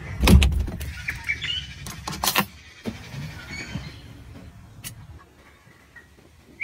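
A travel trailer's push-button door handle is pressed and the door unlatched. A couple of sharp clicks and knocks come in the first half second over a low rumble, then a few scattered handling clicks and knocks.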